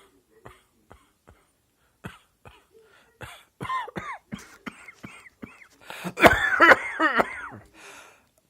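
A series of coughs. Faint short hacks give way to louder pitched coughs, and then to a loud, rapid coughing fit about six seconds in.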